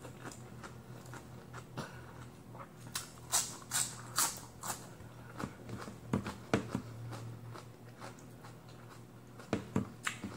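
Eating romaine lettuce close to the microphone: scattered crisp crunches and wet mouth clicks as the leaves are torn and chewed, with clusters of crunches about three seconds in, around six seconds and near the end. A faint steady low hum runs underneath.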